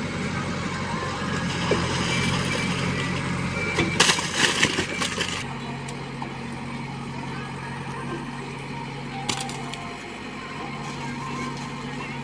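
Heavy diesel engines of a backhoe loader and tractor running steadily. About four seconds in comes a loud burst of crunching and rattling lasting about a second and a half, as a bucket load drops into the trolley. A shorter crack follows near nine seconds.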